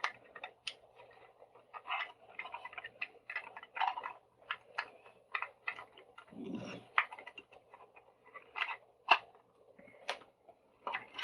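Irregular light clicks and taps of small plastic and metal parts being handled during a headphone teardown, with a softer low rustle about six seconds in.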